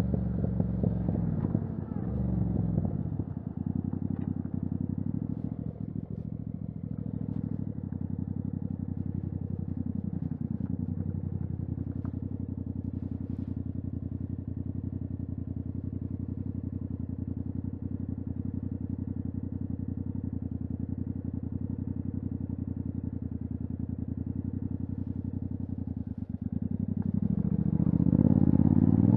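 Yamaha MT-07's 689 cc parallel-twin engine through a titanium Akrapovic exhaust with the dB killer removed, heard while riding. The engine note drops about three seconds in, runs fairly steady through the middle with a few short pitch changes, then rises and gets louder near the end as the bike accelerates hard.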